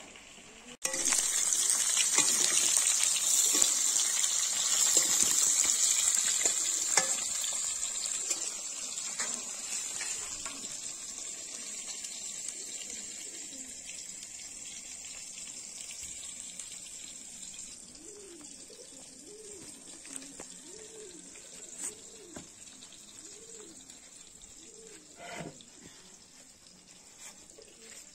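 Food dropped into hot oil in a karahi, setting off a loud sizzle about a second in that slowly dies down over the following seconds.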